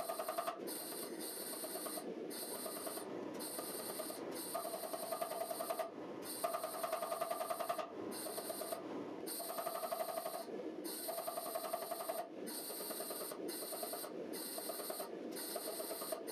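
Rapid, continuous blows of a power hammer forge-welding a hot pattern-welded sword billet, heard as short snippets broken by brief dropouts about every second.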